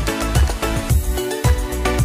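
Background music with a steady beat, about two beats a second, over sustained instrument notes.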